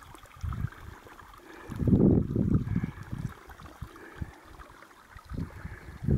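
Wind buffeting the microphone in a few low gusts, the strongest about two seconds in, over a faint steady hiss of trickling water.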